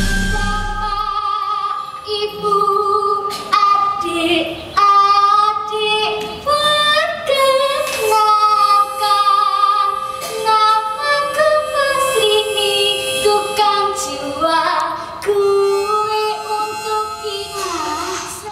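A woman singing a slow melody in long held notes with a slight vibrato, phrase after phrase with short breaths between.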